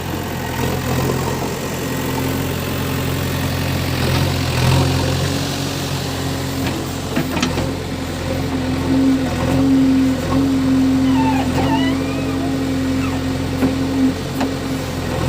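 JCB 3DX backhoe loader's diesel engine running steadily while the machine works. A whine under it grows louder through the middle, and there are a few short knocks and a brief wavering squeal.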